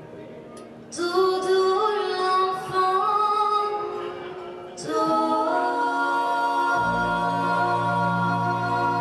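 Vocal group singing a cappella in held harmony. A voice comes in about a second in, more voices join near the middle, and a low voice enters under the chord near the end.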